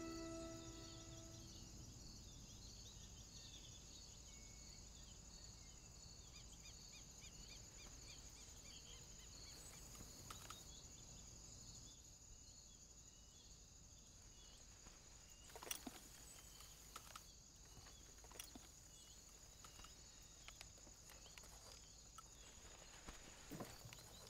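Faint evening countryside ambience of steady insect chirring, crickets with a repeating chirp, as the tail of soft music fades out at the start. From about two-thirds of the way in come scattered soft knocks and clicks from a saddled horse's hooves and tack as it shifts.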